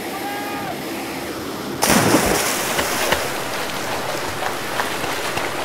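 Steady aircraft engine and wind noise through an open door, then about two seconds in a sudden, louder rush of splashing, churning seawater as a rescue swimmer drops into the sea, which carries on.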